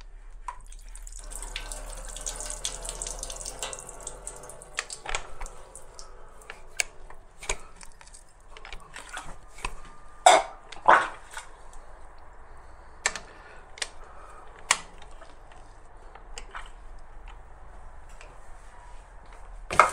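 Water spurting out of a Peugeot DW12 2.2 HDi diesel engine's open injector bore as the crankshaft is turned by hand, the piston forcing out water that has accumulated in the engine. It gushes for a few seconds from about a second in, then gives way to scattered drips and sharp clicks.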